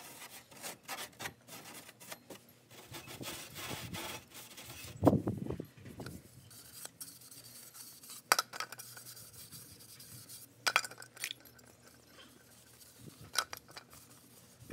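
Scattered knocks and clicks of a hard plastic ABS elbow fitting being handled, with rubbing as it is wiped with a rag; the loudest knock comes about five seconds in.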